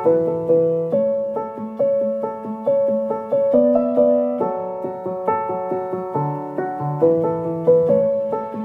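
Background music: a gentle piano melody of evenly paced notes.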